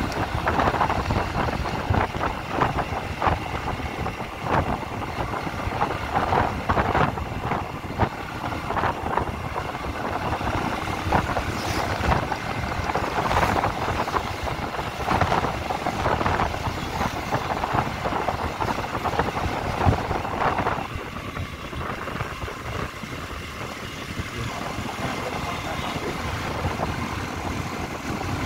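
Motorcycle running on the move, with road noise and wind on the microphone. It eases off a little for several seconds past the middle.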